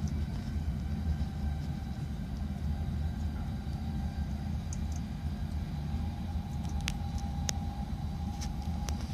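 Steady low running rumble of a moving electric local train, heard from inside the carriage, with a faint steady whine and a few sharp clicks about seven seconds in.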